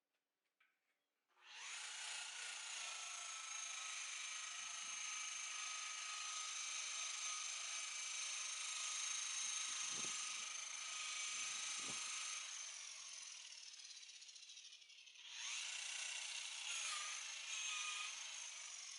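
Electric buffer/polisher motor starting up and running steadily with a high whine, spinning down about two-thirds of the way through, then starting again shortly after.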